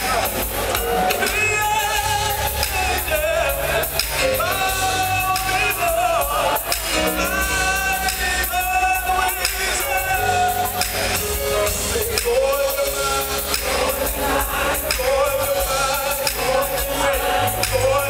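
Gospel choir singing with tambourine over a band with a steady bass.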